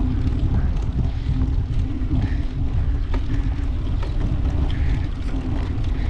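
Wind rushing over an action camera's microphone while riding a bicycle, a steady low rumble with the bike's rolling noise underneath.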